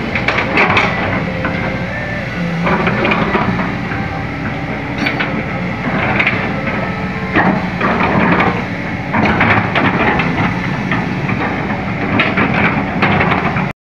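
2011 Kobelco SK200-8 hydraulic excavator working: its diesel engine running steadily under load with hydraulic hiss, while the boom, arm and bucket move and the machine shifts, with repeated metallic clanks and squeals from the steelwork.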